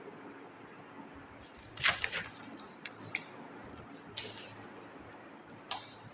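A paper homework booklet being handled and its pages turned: a few short rustles and crinkles, the loudest about two seconds in, with smaller ones around three, four and nearly six seconds in, over a low steady hiss.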